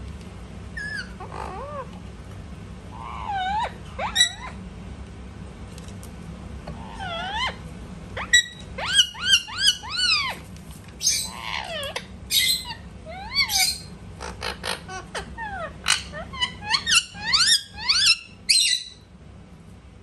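Indian ringneck parakeet calling: a long string of short, squeaky chirps that rise and fall in pitch, some in quick runs of several, loudest in the second half.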